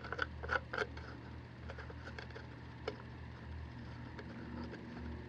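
A few light clicks and taps from handling the plastic pet dryer, mostly in the first second and once more about three seconds in, over a faint steady low hum.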